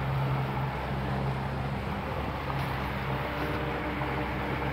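A boat motor running steadily with a low hum, under the rush of wind and water as the boat moves along.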